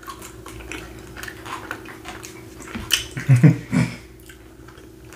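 Close-up chewing and mouth sounds of people eating, with scattered small clicks and a few louder short mouth sounds about three seconds in. A steady faint hum runs underneath.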